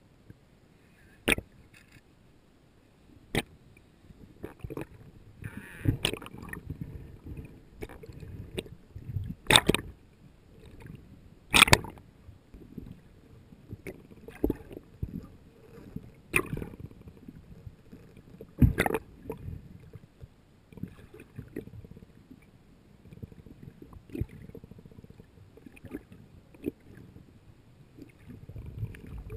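Underwater sound picked up through a diver's camera housing: a low, uneven rumble of water with sharp clicks and knocks every couple of seconds.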